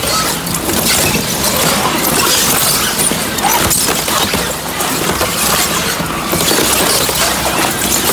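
Styrofoam volume-reduction crusher shredding expanded-polystyrene boxes: a loud, continuous crunching with many small cracks and snaps as the foam is torn apart.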